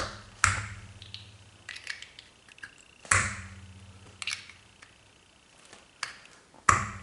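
Three loud sharp knocks, about three and a half seconds apart, each followed by a brief low hum, with lighter clicks and taps between them.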